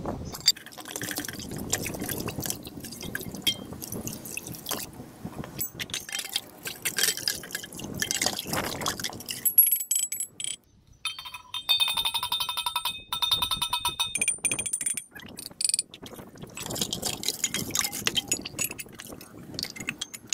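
Brass vessels being washed by hand over a tub of soapy water: water splashing and dripping, with frequent clinks of metal against metal. A ringing tone with a fast flutter sounds for about two seconds past the middle.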